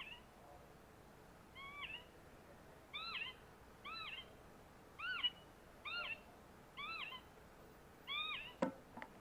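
Bird-call playback speaker playing a recorded call: a short arching note repeated roughly once a second. A sharp click comes near the end.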